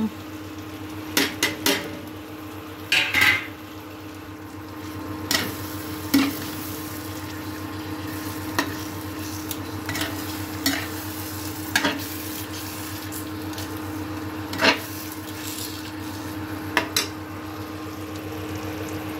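Slotted spoon stirring potatoes through a thick tomato masala in an aluminium kadhai, scraping and knocking against the pan every second or two, with a low sizzle. A steady hum from the induction cooktop runs underneath.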